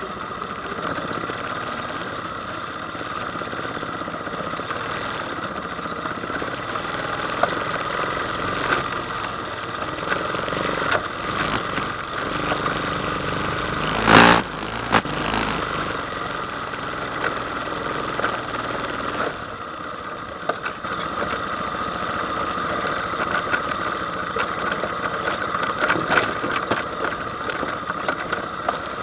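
ATV engine running steadily while riding a trail, with scattered small knocks and clatter, and one loud sharp thump about halfway through.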